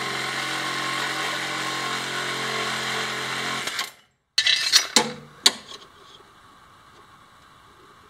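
DeWalt cordless reciprocating saw running steadily as it cuts through metal, stopping abruptly after about four seconds. A few sharp metallic clinks follow about a second later.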